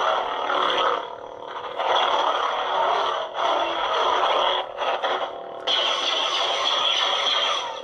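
Neopixel lightsaber sound effects from the hilt's speaker on its Palpatine sound font: a buzzing hum with swing sounds as the blade is waved. A little past halfway the blade is retracted and reignited, and the sound changes suddenly to a brighter hum.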